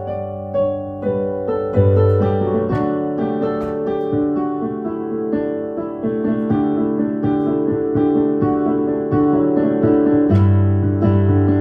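Instrumental music: a keyboard, piano-like, plays sustained chords and quick notes over a low bass note that comes and goes, with no singing.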